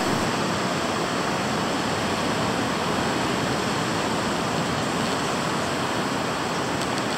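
Steady rushing wash of ocean surf breaking on the beach.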